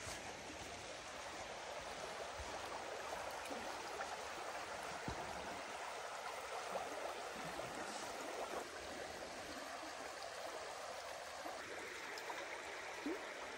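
A creek flowing: a steady rush of running water.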